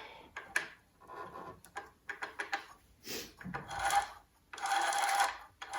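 Hand work on a mini lathe's change-gear train as a 3D-printed plastic gear is secured: scattered small clicks and scrapes at first. Past the middle come several short spells of rubbing, grinding noise with a faint steady whine, as the meshed gears are turned.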